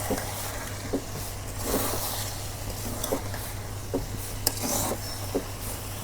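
Spoon stirring and folding half-cooked biryani rice and chicken in a cooking pot: soft scraping with a few light, irregular knocks against the pot, over a steady low hum.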